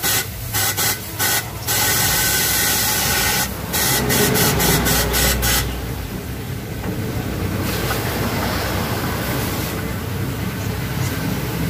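Compressed-air blow gun blasting air into the engine at the oil filter mount to force the last of the old oil out through the oil pan drain. It comes in a string of short hissing blasts, then two longer ones, and after about six seconds it gives way to a steadier, duller noise.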